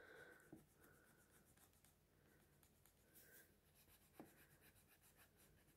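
Near silence, with faint rubbing of a small eraser on paper, lifting coloured-pencil shading.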